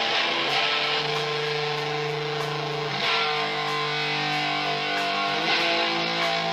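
A live rock band playing, led by guitar: held chords that change about every two to three seconds.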